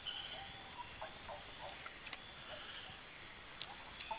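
Night-time insect chorus, crickets chirring in a steady high-pitched drone.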